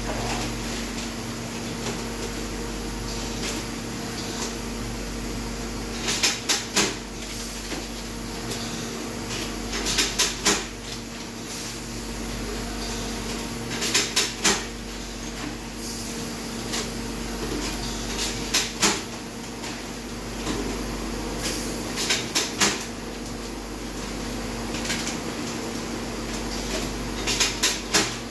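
Steelco VS6/2 steam sterilizer running a test cycle: a steady mechanical hum, broken every four seconds or so by a cluster of two to four sharp clicks or knocks.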